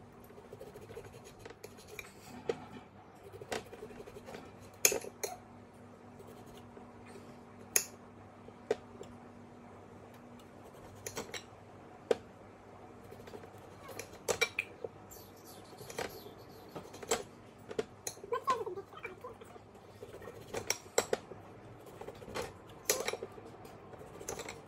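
Kitchen knife slicing red potatoes on a plate: irregular sharp clicks and taps as the blade cuts through and strikes the plate.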